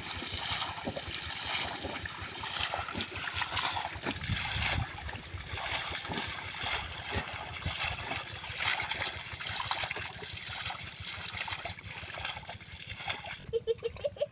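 River water splashing and sloshing, a dense run of irregular splashes, as when someone works with their hands in shallow water.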